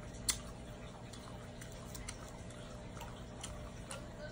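Quiet eating sounds: scattered small clicks and smacks from a fork on dishes and from chewing, with one sharper click about a third of a second in, over a faint steady hum.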